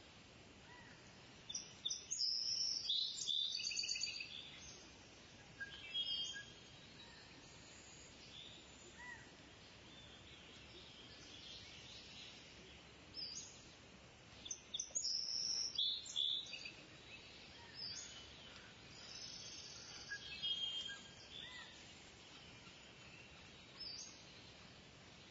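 Wild birds calling and chirping over a faint outdoor background, with bursts of rapid high-pitched calls about two seconds in and again around fifteen seconds in, and quieter chirps between.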